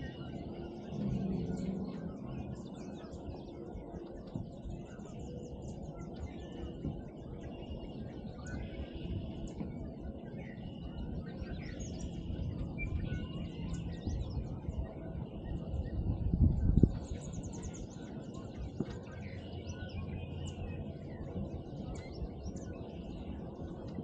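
Many songbirds singing and calling at once, short chirps and trills overlapping without pause, over a steady low rumble that swells loudly for about a second two-thirds of the way through.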